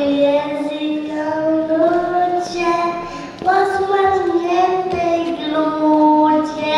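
A little girl singing a Christmas carol solo into a handheld microphone, holding long notes, with a short breath about three and a half seconds in.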